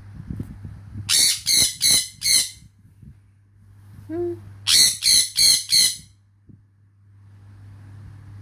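Pet parrot squawking loudly in two runs of four harsh calls, each call about a third of a second apart. It is calling out to its owner, who lies with her eyes shut and does not respond.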